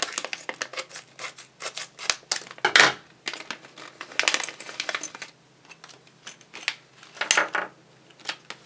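Scissors cutting open a Hello Kitty blind-bag wrapper, then the wrapper crinkling as it is handled, heard as a string of irregular snips and crackles.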